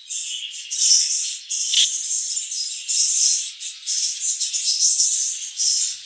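Budgerigars chattering and warbling in dense, irregular high-pitched bursts, with a single short knock about two seconds in.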